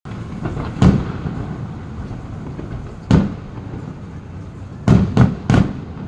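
Aerial fireworks bursting: five sharp bangs, one about a second in, one at about three seconds and three in quick succession near the end, over a steady rumble of smaller bursts.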